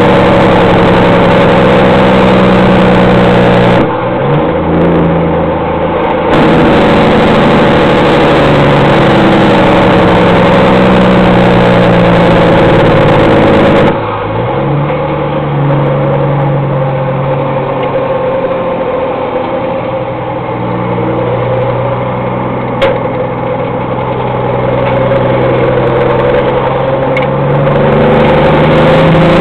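Peterbilt semi-truck's diesel engine through straight pipes, close up from the fuel tank bracket: a loud, deep running note that breaks off briefly about four seconds in. After a second break about fourteen seconds in it settles to a quieter note, then builds loud again near the end. The breaks fit gear changes.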